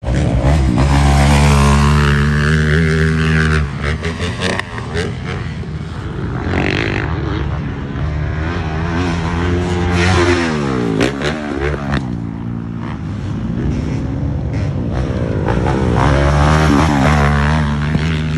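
Honda CRF450RX dirt bike's single-cylinder four-stroke engine revving hard and easing off as it rides the jumps, its pitch climbing and dropping several times. The pitch falls steeply just after ten seconds in.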